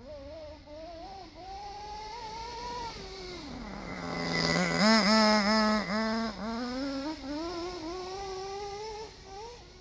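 Schumacher Havoc radio-controlled truck running across grass, its motor note rising and falling as the throttle is worked. It comes closest and is loudest about five seconds in, then fades again.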